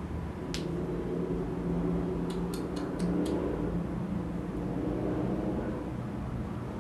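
A low, steady rumble, with one sharp click about half a second in and a quick run of four clicks between two and three and a half seconds in.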